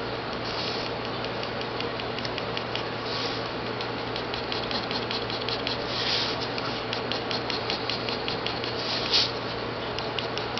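Ink pen scratching on paper in many quick, short shading strokes, with a few longer strokes, over a steady low hum.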